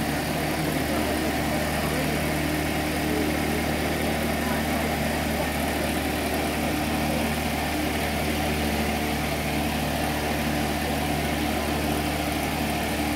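An engine idling steadily, a constant hum under a wash of background noise: the noise pollution apologised for in the description.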